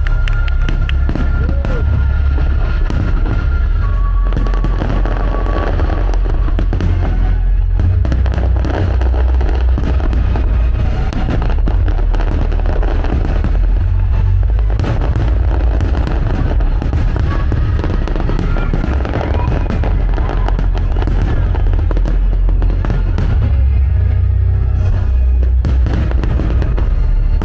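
A fireworks display: shells bursting continuously with deep booms and crackling, the crackle densest near the start, while music plays along with the show.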